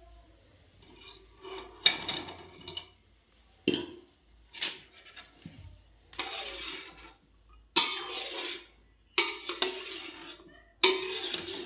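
A wire skimmer and a steel spoon clinking and scraping against a stainless-steel pot of sugar syrup as fried gulab jamun are tipped in and stirred, in about seven separate clattering bursts.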